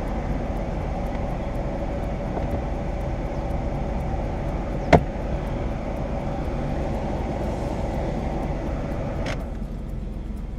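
Steady running noise of a motor vehicle, with one sharp click about halfway through; the sound drops and changes character shortly before the end.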